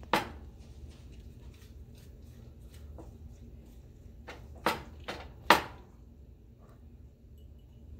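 Kitchen handling sounds as hands rub dry seasoning into whole snapper on a cutting board: a few sharp taps and knocks, the loudest two coming a little under five and about five and a half seconds in, over a low steady hum.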